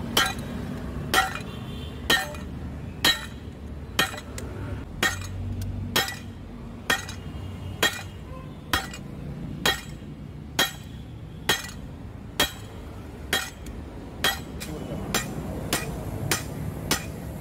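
Hand hammer striking a red-hot billhook blank of leaf-spring steel on an anvil, about one blow a second. In the last couple of seconds the blows come quicker and lighter.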